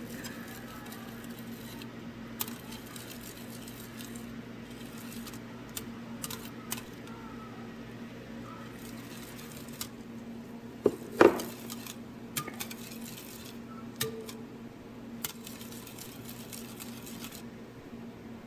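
Wire whisk stirring liquid custard batter in a glass bowl, its wires clicking now and then against the glass, with one louder clink a little past halfway. A steady low hum runs underneath.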